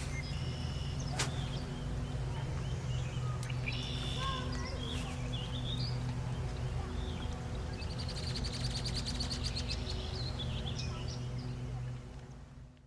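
Birds chirping and calling, with a rapid trill around the middle, over a steady low hum; one sharp click about a second in. The sound fades out near the end.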